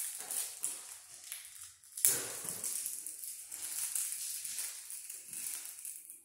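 Crackly rustling as small parts are handled in the hands alongside a screwdriver, with a sharp click about two seconds in.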